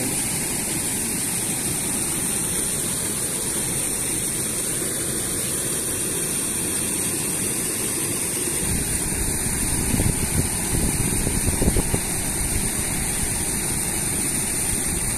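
Steady rushing of river water flowing past stones. A little over halfway through, low uneven rumbling bumps rise over it for a few seconds.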